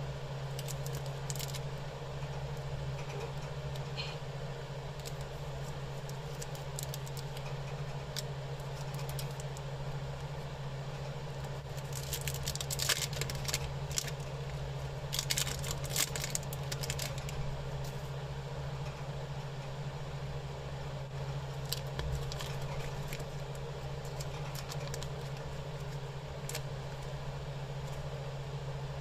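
A KitKat bar's wrapper and inner foil being torn open and crinkled by hand: scattered crackles, with two dense runs of crinkling near the middle. A steady low hum sits underneath.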